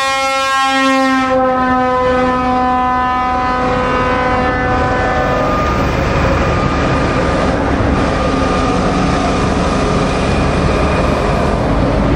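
A truck's air horn blowing one long note, its pitch dropping a little about a second in, fading out after about five seconds. Then the steady noise of heavy lorries and cars driving past.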